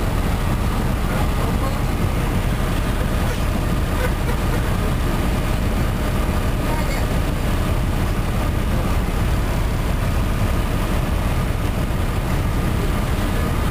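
Cummins ISM diesel engine of an MCI D4500CT motor coach running steadily, heard from inside the cabin with the air conditioning on: a constant low rumble with a faint steady whine above it.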